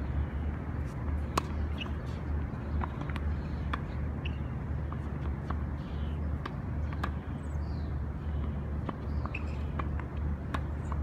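Tennis balls being hit back and forth on an outdoor hard court: sharp pops of racket strikes and ball bounces at irregular intervals, the loudest about a second and a half in. A steady low rumble runs underneath.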